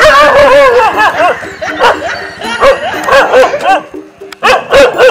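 A dog barking in rapid runs of sharp barks, with a short pause about four seconds in, barking in alarm at a stuffed toy tiger pushed at it.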